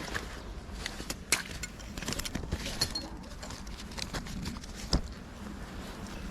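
Scattered sharp clicks and knocks over a faint steady background, the two loudest about a second in and near five seconds in.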